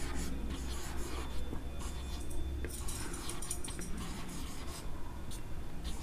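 Marker pen writing on a whiteboard: a run of short, irregular scratchy strokes as the letters are written, over a low steady hum.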